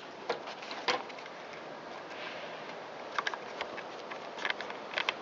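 A few small clicks and scrapes as a debris-caked plastic cover on a chainsaw's clutch housing is worked loose by hand. A steady background hiss runs underneath.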